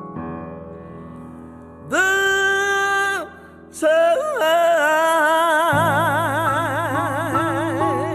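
A female jazz singer with piano accompaniment, slow ballad. She sings a short held note, then a long held note with a wide, even vibrato, over sustained piano chords.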